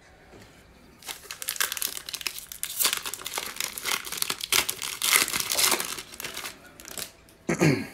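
Foil wrapper of a Panini Prizm football card pack being torn open and crinkled by hand. A dense crackling run starts about a second in and lasts several seconds.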